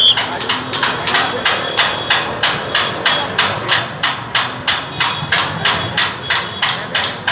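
Steady rhythm of sharp knocks or strikes, about three a second.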